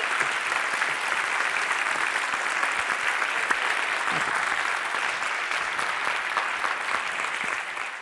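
Audience applauding steadily, fading out near the end.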